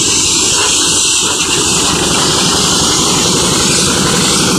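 Steady, loud rush of compressed air from a hose blowing cement dust off the bulk-tanker trailer, with an engine running steadily underneath.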